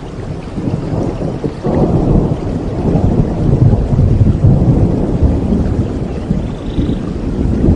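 Rain falling steadily with rolling thunder; the rumble swells about two seconds in, is loudest around the middle, and slowly eases off.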